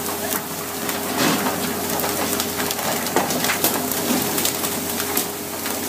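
Dense hiss of water spray pattering on the churning sea beside a pole-and-line tuna fishing boat, with scattered knocks and clicks and a faint steady hum.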